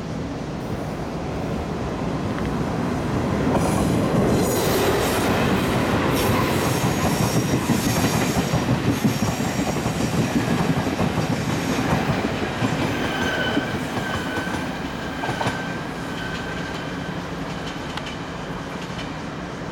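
Locomotive-hauled five-car tour train (two electric locomotives, the second in tow) passing close by, with wheels rattling over the track. It builds to its loudest a few seconds in. High-pitched wheel squeal comes as the cars pass, and a lower, steadier squeal follows as the rear cars take the curve and draw away.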